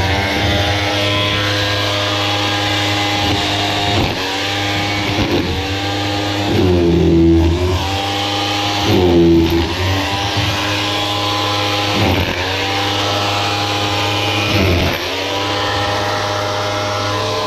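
Makita electric demolition hammer with a chisel bit, hammering continuously to break up mortar and block rubble in a wall cavity. Its pitch sags and recovers every few seconds as it runs.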